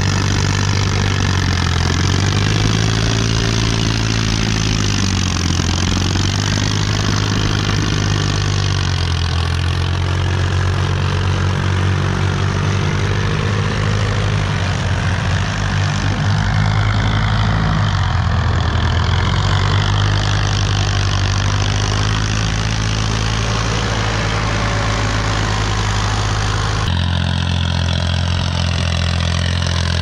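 Farm tractor diesel engines running steadily under load while dragging levelling blades through dirt, with slight rises and falls in engine pitch. The sound changes abruptly near the end.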